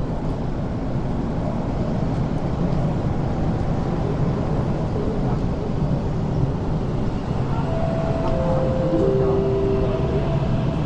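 MTR K-Stock electric train pulling into an underground platform behind screen doors: a steady low rumble that slowly grows louder. Near the end a motor hum steps down in pitch three times as the train slows.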